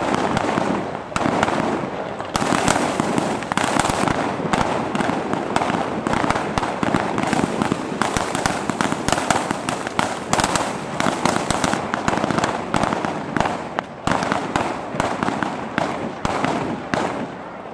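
Silver-waterfall (Niagara) fireworks burning along a line: a dense, continuous crackle and hiss of falling sparks with many sharp cracks close together, easing slightly near the end.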